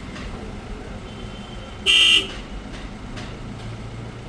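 A single short, loud beep about two seconds in, lasting about a third of a second, over a low steady background.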